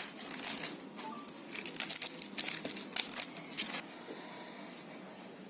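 Crinkling and rustling of handled packaging, in a string of short bursts that stop near the four-second mark, over a steady background hiss.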